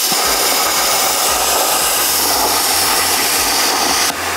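Handheld plasma cutter torch cutting steel plate: a loud, steady hiss of the arc and air that drops abruptly to a softer hiss about four seconds in.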